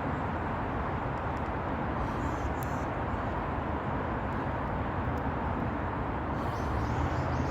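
Sea waves washing continuously onto the shore, a steady noise without pauses. Near the end a small bird chirps in a quick run of repeated high notes.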